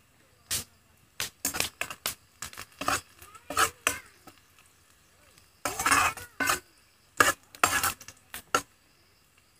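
Steel spoon scraping and clinking against a black pan while stirring sliced onions over a wood fire, in irregular clusters of strokes with short pauses between.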